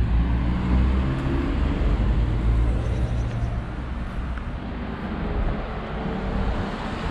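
Street traffic: a passing motor vehicle's low engine rumble, loudest for the first four seconds and then easing off.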